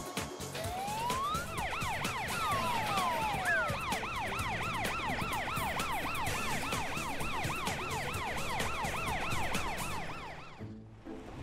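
Cartoon emergency-vehicle siren sound effect for the police car and fire engine: a fast yelping wail, about three rising and falling sweeps a second. It begins about a second in with a few slower single sweeps and fades out near the end.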